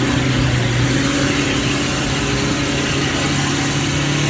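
Off-road Jeep's engine held at steady high revs as it churns through deep mud, its spinning wheels throwing up mud and water with a continuous splashing hiss.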